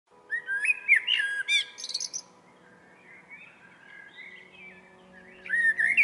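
Male common blackbird singing: two loud phrases of mellow fluted whistles, the first near the start and ending in a high squeaky twitter, the second near the end. Fainter song carries on between them.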